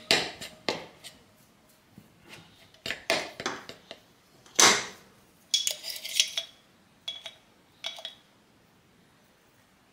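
Metal spoon tapping and scraping against a ceramic bowl as it crushes crumbly hard-boiled egg yolk, with one sharper clink about halfway through. Then lighter clinks of a small spoon scooping sugar from a ceramic pot.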